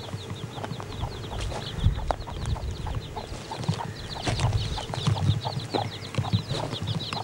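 Domestic chicks peeping, a rapid, continuous string of short high chirps, with a hen clucking among them and some low thumps and rustling.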